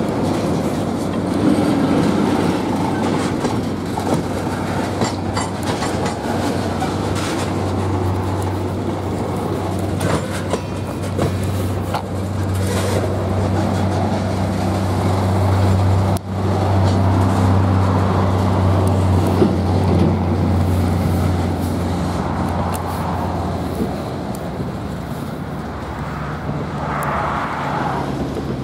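Slow freight train of tank cars rolling past on the rails, with a steady low engine hum underneath from about eight seconds in until near the end.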